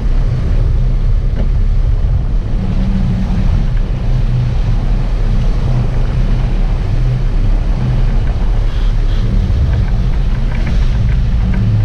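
Sportfishing boat's engines running with a steady low hum, water rushing and churning around the hull, and wind buffeting the microphone.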